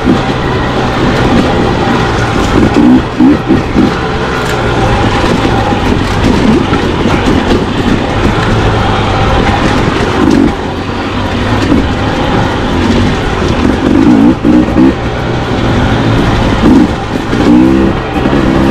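Dirt bike engine running under load on a trail ride, revving up and dropping back several times as the throttle opens and closes.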